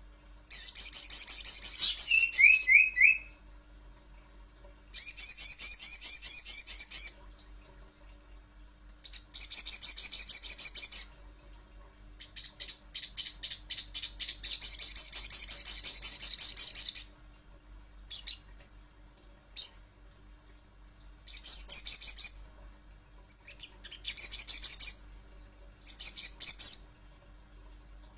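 Sogon (sogok ontong) song: a series of high, fast trilling phrases, each about two seconds long, with short pauses between them.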